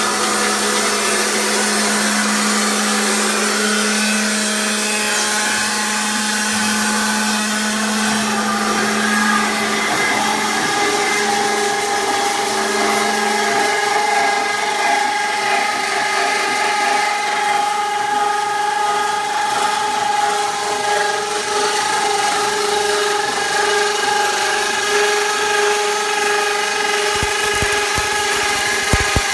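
Pallet rack step beam roll forming machine running, steel strip feeding through its forming roller stands with a steady mechanical drone and whining tones; a low hum drops out about halfway. Near the end, crackling from the welding torches joining the formed beam.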